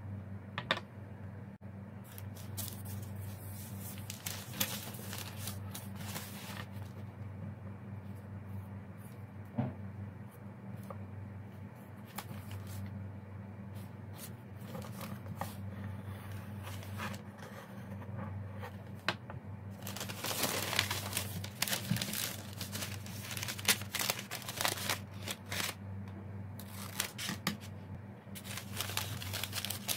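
A pencil compass scratching on paper at first, then brown kraft paper rustling and crinkling as it is cut and handled, busier in the second half. A steady low hum runs underneath.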